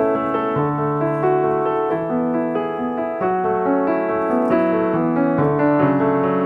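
Background piano music: a steady succession of sustained notes over a slow bass line.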